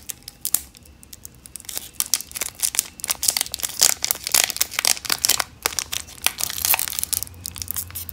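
Foil Pokémon booster pack crinkling and crackling as it is slowly torn open by hand, the crackles sparse at first and busier from about two seconds in.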